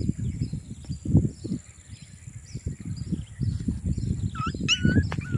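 Irregular footsteps and rustling on dry, weedy ground as someone walks with the camera, with faint bird and insect chirps behind. About four seconds in, a short wavering animal whine begins, its pitch rising and falling.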